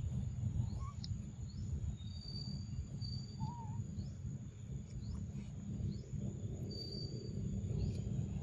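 Outdoor ambience: a steady low rumble under faint, high-pitched bird chirps and thin whistled notes, one held note about two seconds in and another near the end.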